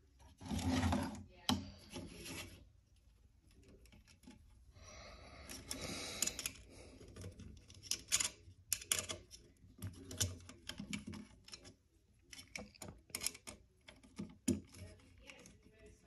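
Handling noise from wiring a smoke detector's plastic mounting base: wire and plastic rubbing and scraping on a wooden bench top, then small irregular clicks and scrapes as a small screwdriver works the base's terminal screws.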